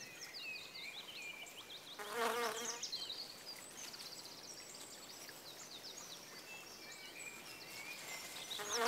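Bumblebee buzzing in short spells, about two seconds in and again near the end, with faint high chirping throughout.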